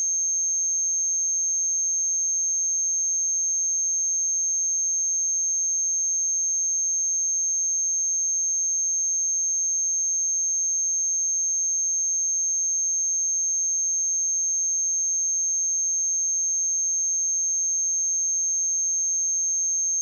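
A single steady high-pitched sine tone at 6386 Hz, held unbroken at a constant level: a speaker and headphone test tone.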